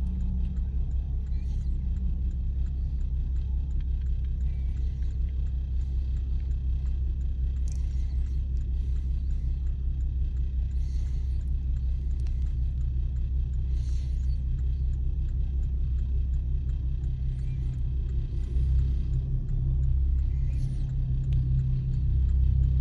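ChME3T diesel shunting locomotive running with a steady low rumble, swelling slightly about nineteen seconds in and again near the end.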